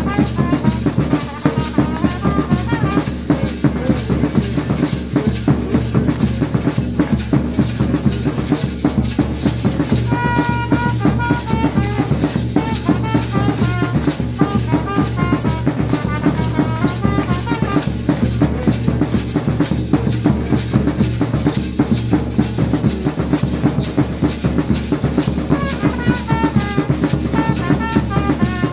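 Several large double-headed drums beaten with sticks in a fast, steady rhythm, with a trumpet playing short melodic notes over them and holding one long note about ten seconds in.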